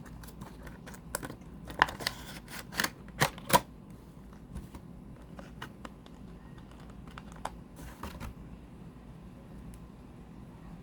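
Small packaging being opened by hand: a run of sharp clicks and taps over the first few seconds, then a few scattered clicks and a brief rustle about eight seconds in.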